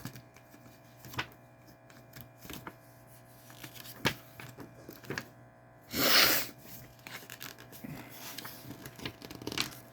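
Blu-ray cases and packaging being handled: scattered light plastic clicks and taps, with one loud rustle about six seconds in, over a steady electrical hum.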